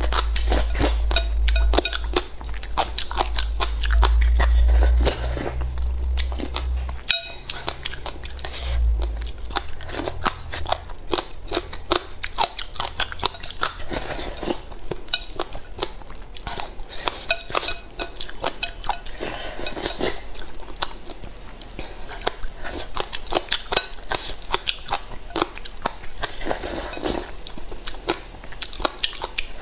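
Close-miked eating: crunchy chewing and biting of chili-seasoned shredded papaya, with porridge slurped from the rim of a bowl. The first several seconds also carry a deep low rumble.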